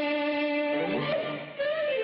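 Orchestral cartoon score, mostly strings: a held chord, then a rising slide in pitch about a second in. The music dips briefly and comes back sharply near the end.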